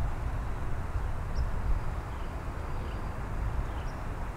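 Outdoor ambience: a steady low rumble and hiss, fading slightly, with a few faint, short bird chirps.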